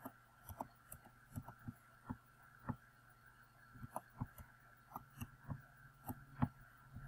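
Computer mouse clicking in an irregular run of short, sharp clicks, a few a second, over a faint steady hum.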